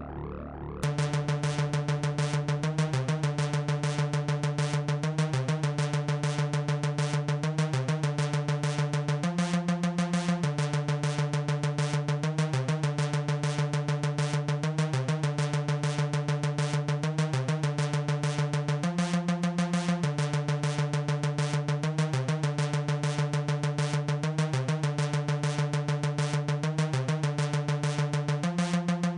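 Electronic background music: a fast, steady synthesizer and drum-machine pulse over held chords that change every couple of seconds, coming in abruptly about a second in.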